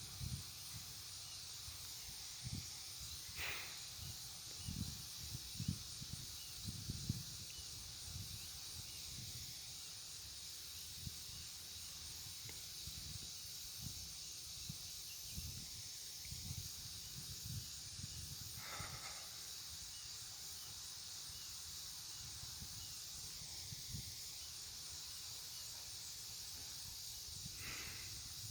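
Steady high-pitched outdoor drone of insects with faint ticking in it. Scattered low thumps and three brief rising chirps come through, about three seconds in, near the middle and near the end.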